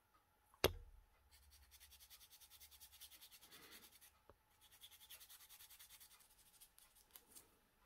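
Faint, quick back-and-forth strokes of a sanding stick rubbing on a small plastic model-kit part, sanding raised detail off a cockpit side wall. A single sharp tap comes first, under a second in, and is the loudest sound.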